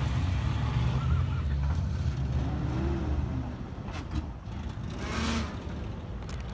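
Classic cars cruising slowly past, their engines running with a low, steady rumble that fades over the second half. A brief hiss comes about five seconds in.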